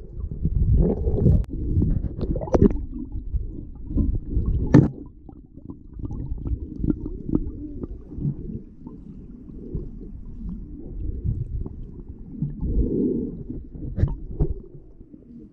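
Muffled underwater sound picked up by a submerged camera: water moving and rumbling around the swimmer, with a few sharp clicks and knocks. It is busier and louder for the first five seconds, then quieter.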